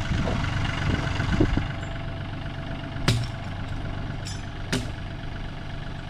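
Farm tractor engine running steadily at low revs, with two sharp knocks about a second and a half apart past the middle.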